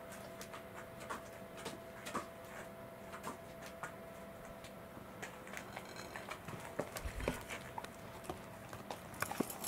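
Scattered soft clicks and taps, then from about seven seconds in a corgi eating okara (soy pulp) off a plate: quick wet chewing and licking clicks.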